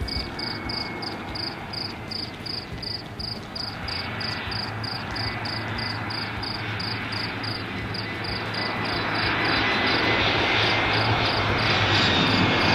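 Crickets chirping in a steady rhythm, about three chirps a second, while the engine noise of a jet airliner builds up underneath and grows steadily louder toward the end, partly covering the chirps.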